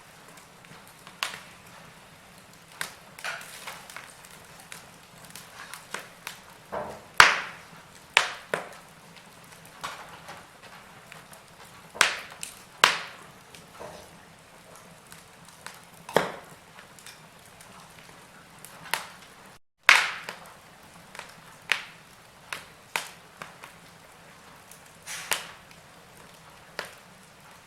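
Wood fire crackling: irregular sharp pops and snaps of burning logs over a faint hiss. The sound cuts out for an instant about twenty seconds in.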